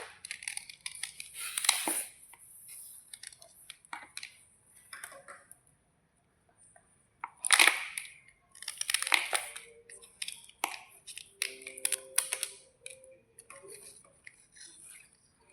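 White slate bars being crunched close to the microphone: irregular crisp cracks and crumbling crunches, with a short pause about halfway through.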